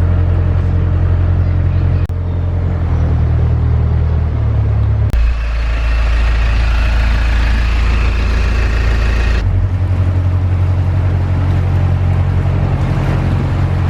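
Narrowboat engine running steadily, with abrupt changes in its sound about two, five and nine seconds in; the middle stretch has a heavier low rumble with added hiss.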